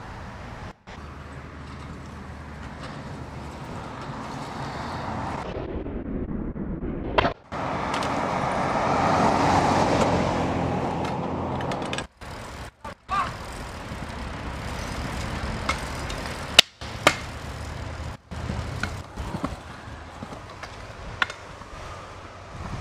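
Stunt scooter wheels rolling on concrete, swelling as the rider comes closer, with a few sharp clacks of the deck and wheels hitting the ground. Under them is a steady outdoor hum of traffic, and the sound cuts out briefly several times.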